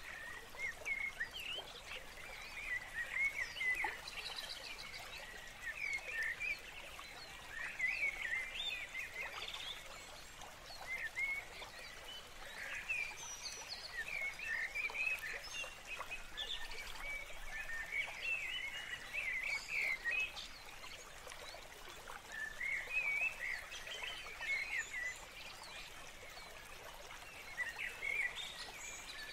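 Outdoor chorus of small animals chirping: clusters of short, quick chirps that come and go every couple of seconds over a steady background hiss.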